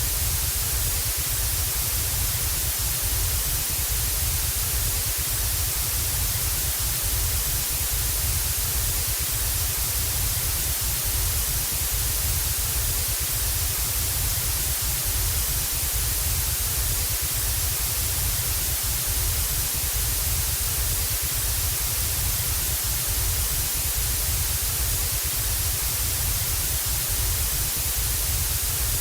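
Television static sound effect: a steady, even hiss of white noise that does not change.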